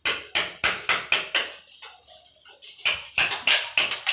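Rapid hammer strikes, about four to five a second, in two runs with a pause of about a second between them.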